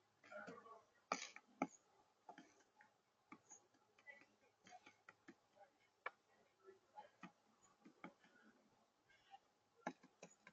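Near silence broken by faint, irregular clicks and taps, a few of them sharper, with a brief soft rustle just after the start.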